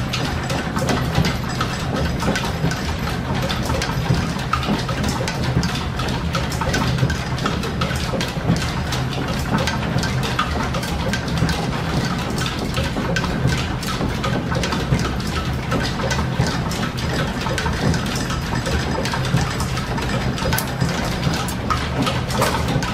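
Line-shaft-driven metal lathe running steadily, turning a piston-ring casting, with the shop's belts and overhead shafting running along with it. There is a low steady hum and many light clicks throughout.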